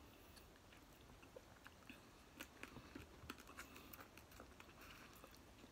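Faint chewing with scattered small clicks and crackles from snow crab legs being picked apart by hand.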